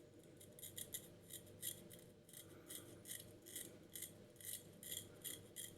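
C.V. Heljestrand lathercatcher safety razor scraping through lathered stubble in quick short strokes, about four a second: the blade cutting hair during a shaving pass.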